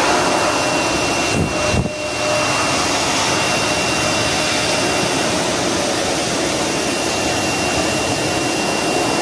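Hair dryer blowing steadily on a wet cat's fur to dry it, a constant rush with a thin high whine, briefly dipping about one and a half to two seconds in.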